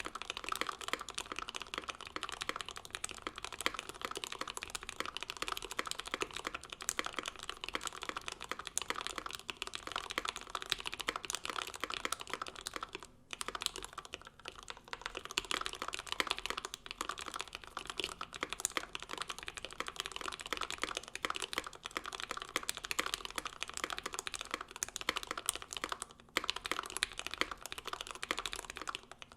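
Continuous fast typing on a custom mechanical keyboard: a Bauer 1 with an aluminium plate, gasket mount, Tealios V2 linear switches lubed with Krytox 205g0, and GMK Minimal R1 keycaps. Dense keystrokes run with two brief pauses, about 13 and 26 seconds in.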